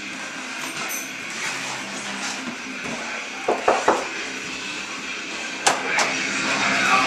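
Three quick knocks on a wooden door, then two sharp clicks of the door latch as it is opened. Muffled band music with bass guitar behind it grows louder near the end as the door opens.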